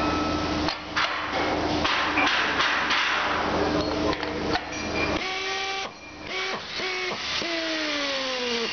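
Titeforce 34 GX RAD pneumatic torque wrench running on a flange nut: a loud motor whine and air hiss with a few sharp knocks. After a short lull, the motor's pitch falls steadily near the end.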